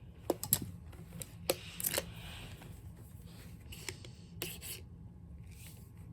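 A hand tool scraping and clicking against an old hair dryer's plastic housing as it is pried at, with scattered sharp clicks and a short scraping stretch about two seconds in.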